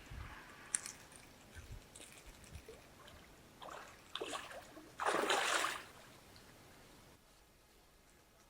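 Water splashing and sloshing in short bursts, the loudest splash about five seconds in, lasting under a second, with a sharp click under a second in.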